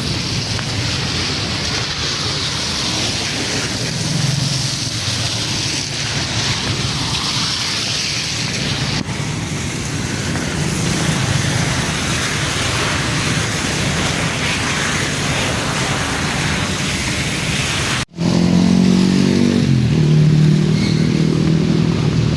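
City street traffic: a steady hiss of passing cars and motorcycles. Near the end, after a brief break in the sound, a close engine runs with a steady low hum.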